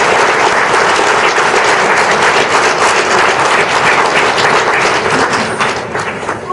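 An audience applauding: dense, steady clapping that thins out and fades near the end.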